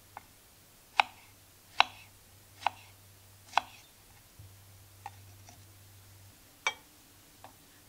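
Kitchen knife slicing strawberries on a wooden cutting board: sharp knocks of the blade against the board about a second apart, a lull of lighter taps, then another firm knock near the end.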